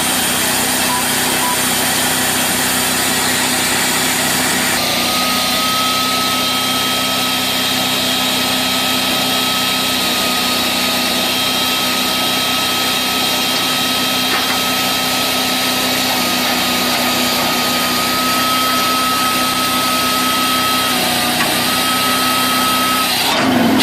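Firewood processor running, its engine droning steadily. From about five seconds in, a steady high whine sits on top of the drone.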